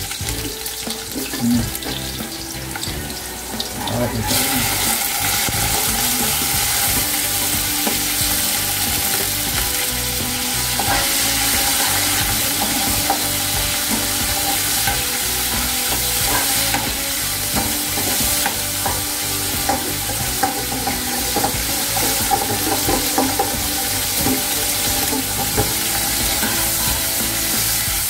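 Garlic frying in hot oil in a stainless steel wok. About four seconds in, the sizzle turns loud and steady as chopped pork and onion go into the pan. A metal spoon stirs and scrapes them against the pan.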